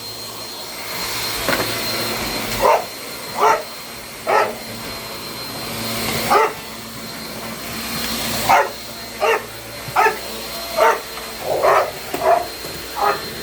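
Dogs barking in short, sharp barks, about a dozen at uneven intervals, over the steady hum of a running vacuum cleaner; the dogs are worked up by the vacuum.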